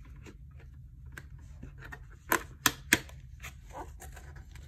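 Hands handling a cardboard album box and working its sleeve open: light scrapes and taps, with three sharp clicks close together a little over two seconds in.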